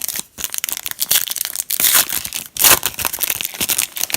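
A trading card pack's foil wrapper being torn open and crinkled, loud crackling that peaks about two seconds in and again shortly after.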